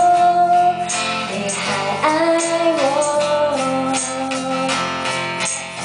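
Live acoustic band music: a woman singing long held notes, accompanied by a strummed acoustic guitar and electric bass, with a steady beat running under it.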